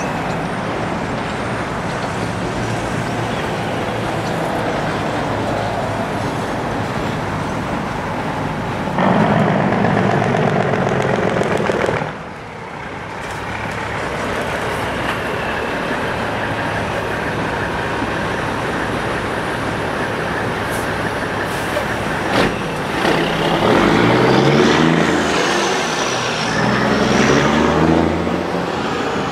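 Steel wheels of freight hopper cars rolling past on the rails, a steady rumble and clatter. Near the end an engine is heard revving up over it.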